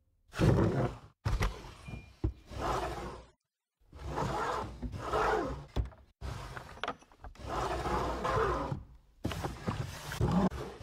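Wooden drawers of a printer's type cabinet sliding out and in, wood scraping on wood, with the small objects in their compartments rattling and clicking. It comes as several separate scrapes, each cut off abruptly.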